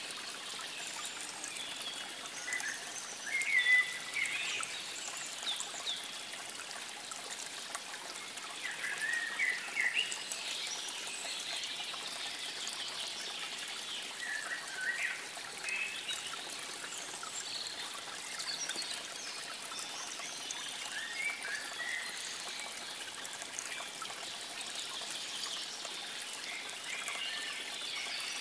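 Small birds singing in short chirping phrases over a steady trickle of running water. The loudest phrases come about four and ten seconds in.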